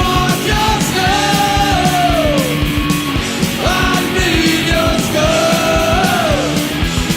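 Rock music with a driving drum beat and a sung vocal line, the voice gliding down at the ends of phrases.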